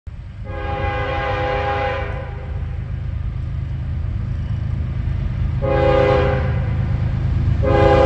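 Diesel freight locomotive air horn blowing for the approach: a long blast, a shorter one about four seconds later, and another starting near the end, over the low rumble of the oncoming train.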